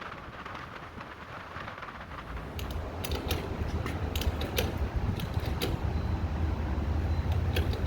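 An engine running, coming up and growing louder a little after two seconds in, with sharp metallic clicks and creaks over it.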